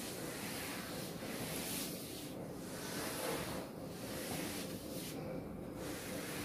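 A sponge eraser wiping a chalkboard in repeated rubbing strokes, a scratchy hiss that comes and goes with short pauses between strokes.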